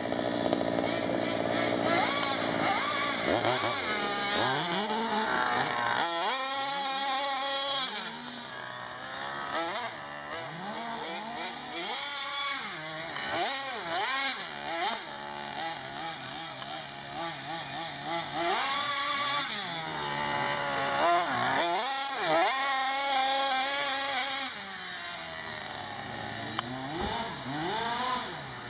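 OBR 50.8cc twin-cylinder two-stroke engine of an HPI Baja 5T RC truck being driven hard, revving up and down over and over, its pitch rising and falling with each burst of throttle.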